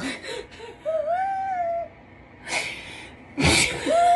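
A woman breaking into laughter after fumbling her words: breathy gasps and two long, high-pitched squealing giggles, one about a second in and one near the end.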